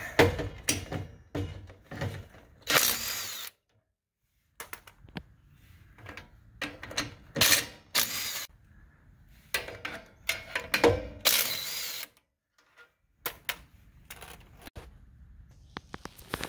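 Impact wrench hammering off the mounting nuts of an electric trailer drum brake's backing plate, in several short bursts with pauses between them as it moves from nut to nut.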